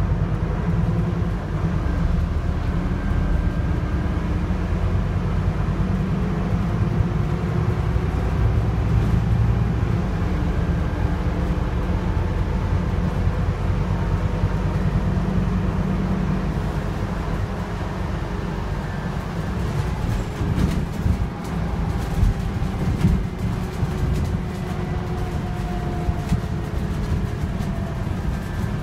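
Scania Citywide LFA articulated city bus heard from inside the passenger cabin while under way: a steady low rumble from the engine and running gear, with whining tones that rise and fall as the bus speeds up and slows. From about twenty seconds in, scattered knocks and rattles join it.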